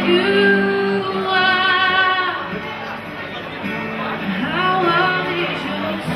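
Live duet performance: a woman sings into a microphone, holding long notes with vibrato, accompanied by an acoustic guitar.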